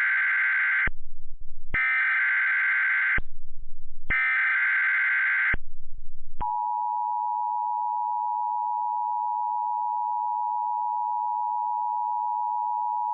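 Emergency Alert System SAME header: after the tail of one burst, two more bursts of screeching digital data tones about a second apart. About six seconds in, the steady two-tone EAS attention signal (853 and 960 Hz) begins, the alarm that announces an emergency alert.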